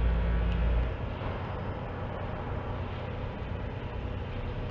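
Diesel locomotive engine working hard while shoving a train backwards up a grade. It throttles down about a second in, leaving a lower, steady rumble.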